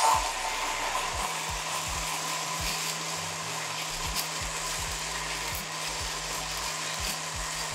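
Hamilton Beach drink mixer and a handheld milk frother running at the same time, both spinning in steel tins of cocktail with ice. A steady electric motor whir with a constant low hum, starting suddenly; the frother's small whisk is barely getting into the large ice.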